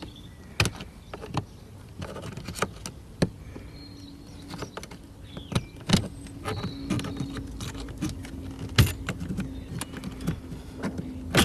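Plastic trim covers around a BMW E46 steering column being pried and worked loose: a run of irregular clicks, knocks and rattles as the clips release, the loudest knock about nine seconds in. A faint steady hum starts a few seconds in.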